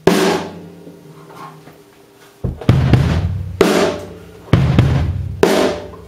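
Acoustic drum kit played. A crash at the start rings out and fades over about two seconds. From about two and a half seconds in comes a run of deep drum hits, about one a second, each with cymbal wash on top.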